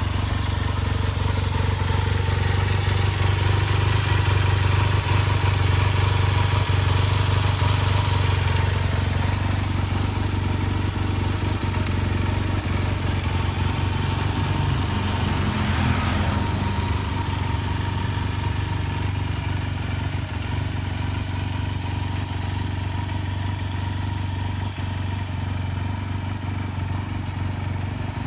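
A 1989 Yamaha XTZ 750 Super Ténéré's liquid-cooled 750 cc parallel-twin engine idling steadily at standstill, with one brief swell in the sound about sixteen seconds in.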